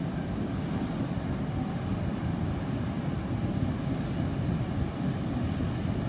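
Wind buffeting the microphone: a steady, low, fluctuating rumble.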